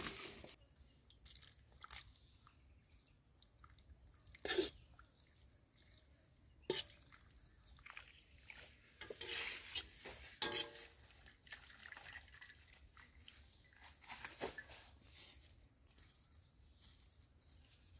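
A few scattered crunches, rustles and knocks from handling things and walking barefoot on dry leaf litter, with quiet gaps between them.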